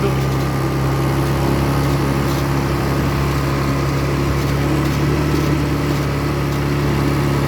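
Small ATV engine running at a steady speed, with an even drone that holds one pitch.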